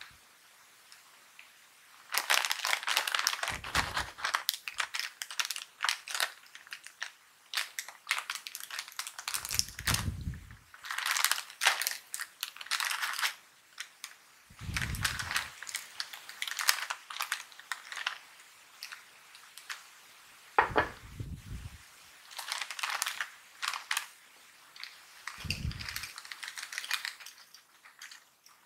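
Foil-lined Piattos chip bag crinkling loudly in irregular bursts as it is handled and opened, with a few soft low thuds from the bag being handled.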